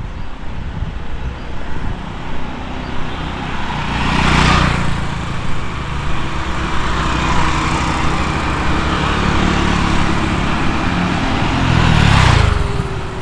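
Road traffic: motor vehicles running steadily by on a street, with two loud close passes, about four seconds in and again near the end.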